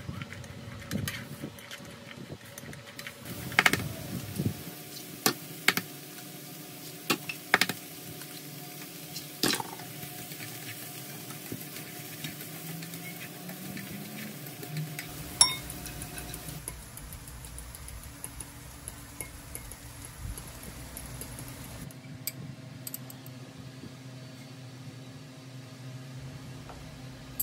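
Julienned carrots stir-frying in a nonstick frying pan: a steady sizzle with chopsticks clicking and scraping against the pan, often in the first ten seconds and once sharply about fifteen seconds in. Later beaten egg cooks in the pan with a quieter sizzle.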